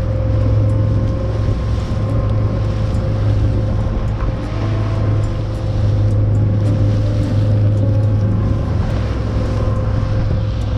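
A boat's engine drones steadily while the boat is underway, over the rush of water past the hull and wind.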